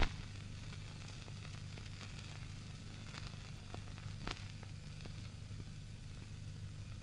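Background noise of an old film soundtrack: a steady low hum under a faint hiss, with scattered crackles and clicks.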